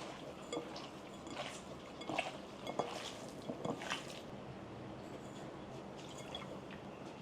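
Kitchen food-preparation sounds: a handful of short clicks and brief wet, liquid sounds in the first half, over a steady background hum.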